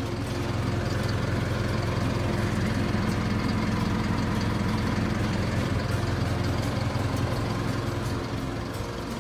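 Isuzu Elf light truck's engine idling steadily, a little quieter near the end.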